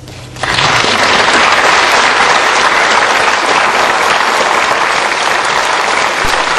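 The last guitar and vocal note of a romance fades out, and about half a second in the audience breaks into loud, sustained applause.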